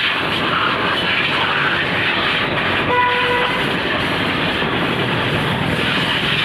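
Steady rushing noise of moving traffic and wind, with a short horn beep about three seconds in.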